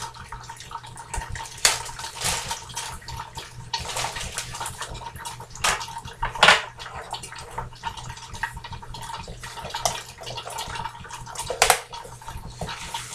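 Crumbled tofu frying in grease in a covered skillet: a steady sizzle full of small crackling pops. A few louder rustles of a plastic package being handled come through it.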